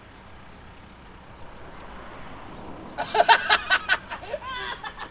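Steady outdoor traffic noise that swells a little as a vehicle goes by; about three seconds in, a man laughs loudly in quick pulses, trailing into a few drawn-out vocal sounds near the end.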